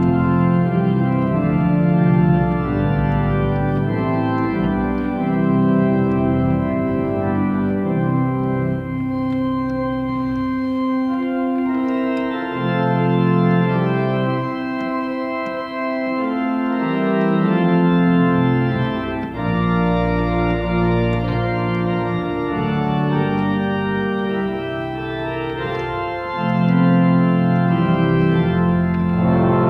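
Large three-manual church pipe organ playing full, sustained chords. The deep pedal bass drops out for several seconds in the middle, then comes back.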